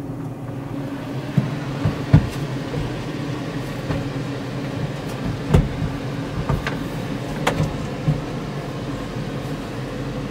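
Small portable electric blower running steadily with a hum and rush of air, set up to dry out the bare wood of a cubby. Several sharp knocks and clatters come from the unit and its cord being handled.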